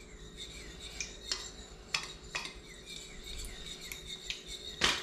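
Fork stirring a cornstarch-and-water slurry in a small bowl, with light irregular clicks and scrapes of the tines against the bowl as lumps at the bottom are worked in. A louder click comes near the end.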